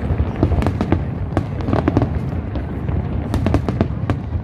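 Aerial fireworks display: a dense, irregular run of sharp cracks and pops over a steady low rumble.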